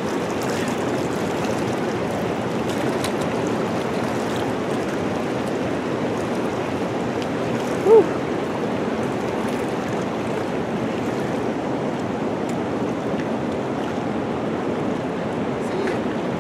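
Steady rushing water, an even rush that doesn't let up. About halfway through there is one short pitched sound that rises and falls.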